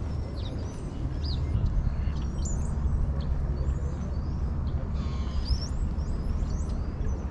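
Small birds chirping, many short high calls scattered throughout, over a steady low rumble.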